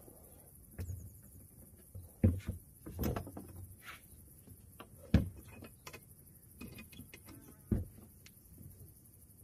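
Hollow knocks and clatter from a two-wheeled kayak cart being fitted under a plastic kayak hull, with three louder clunks spaced a couple of seconds apart.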